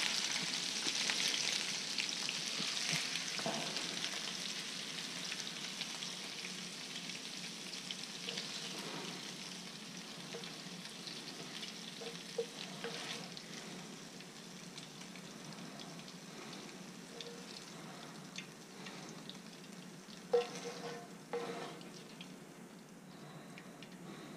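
Cubed redfish sizzling in shallow cooking oil in a skillet, the sizzle fading as the pieces are lifted out with a spatula. A few light taps and scrapes of the spatula against the pan and plate, the loudest two near the end.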